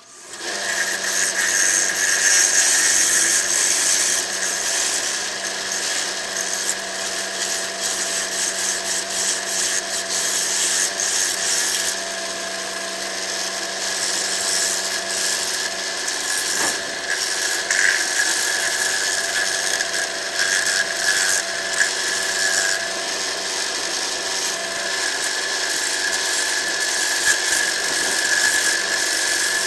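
Wood lathe running while a bowl gouge cuts the inside of a large jacaranda bowl: a continuous scraping hiss of the cut over the steady tone of the spinning lathe.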